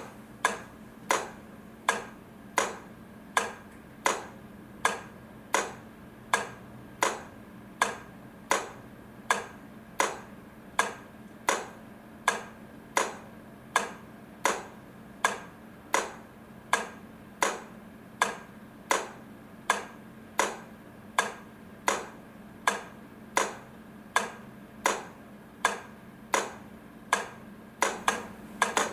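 A railway crossing light flasher relay clicking at an even pace, about four clicks every three seconds, as the lamps alternate, over a steady low hum.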